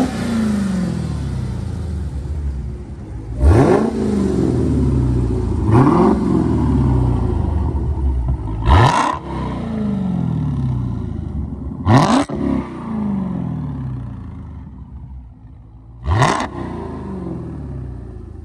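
Supercharged 6.2-litre Hemi V8 of a 2020 Dodge Charger SRT Hellcat Widebody, idling and blipped about six times. Each rev climbs sharply and then falls back to idle.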